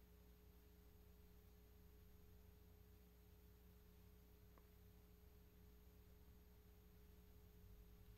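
Near silence: room tone with a faint steady hum, and a single faint tick about halfway through.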